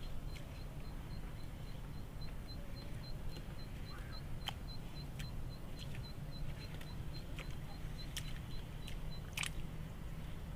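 Tomatoes being picked by hand from staked vines: scattered snaps and rustles of stems and leaves. Under them are a low steady rumble and a high, even chirp repeating about four times a second, which stops near the end.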